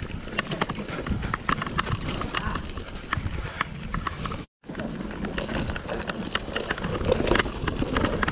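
Mountain bike rolling fast down a rocky, leaf-strewn trail: tyres crunching over leaves and stones while the chain and frame rattle in a rapid, uneven run of clicks and knocks. The sound cuts out completely for a moment about halfway through.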